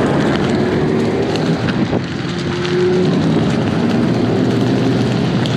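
Motor vehicle engine running steadily, with wind noise on the microphone.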